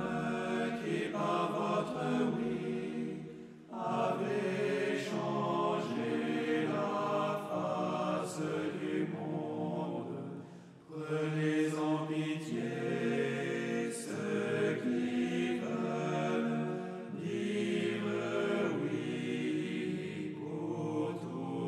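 Background music of sung choral chant: voices holding long notes in phrases, with short breaks between phrases about four, eleven and seventeen seconds in.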